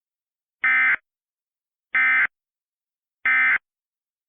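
Emergency Alert System end-of-message signal: three short, loud bursts of SAME digital data tones, a little over a second apart, marking the end of the alert.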